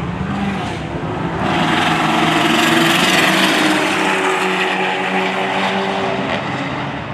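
Two high-powered cars accelerating flat out side by side in a roll race, engines under full load. The roar swells about a second and a half in, is loudest around three seconds, then slowly eases as they pull away.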